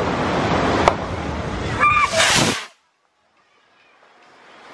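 Steady rush of surf and wind on a beach while a stick rocket's fuse burns and sparks, with a short voiced call about two seconds in and a louder rushing burst just after. The sound then cuts off abruptly, and a faint hiss slowly rises.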